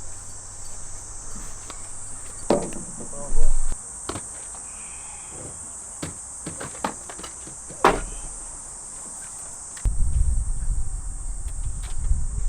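Steady high-pitched chirring of insects in summer, broken by a few sharp knocks and clatters, the loudest about three and a half seconds in. About ten seconds in, a low rumbling noise starts.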